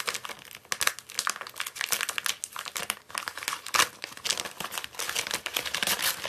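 Thin white plastic mailer bag crinkling and crackling in rapid, irregular bursts as hands grip and pull it open.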